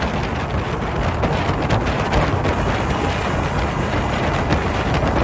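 Steady wind noise buffeting the microphone, with vehicle noise underneath.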